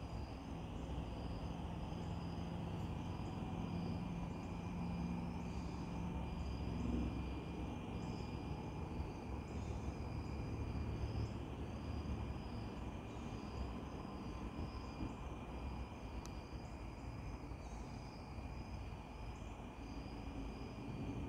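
Insects, likely crickets, chirping in a high pulse that repeats about once a second, over a steady low rumble.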